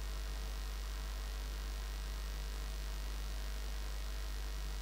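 Steady low electrical mains hum with a faint hiss. Nothing else stands out.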